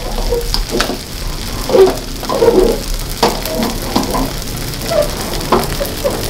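Fried rice sizzling in a wok while a metal spatula stirs and scrapes it around the pan. Irregular scrapes and knocks of the spatula against the wok come every second or so.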